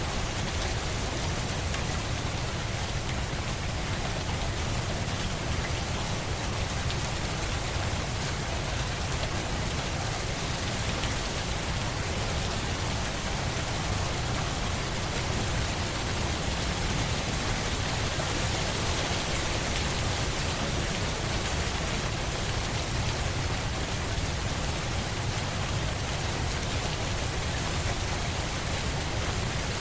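Steady rain falling on a surface, an even patter with no let-up or change.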